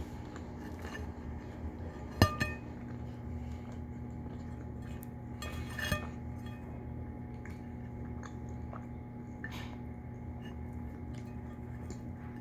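Eating at a table: a sharp clink of dishware about two seconds in and a softer one near six seconds, with faint chewing and small clicks over a steady low hum.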